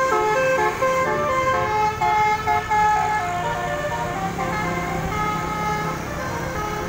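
Coach's multi-tone telolet horn playing a quick tune of stepping notes, loudest in the first few seconds and fading as the bus pulls away, over engine and traffic noise.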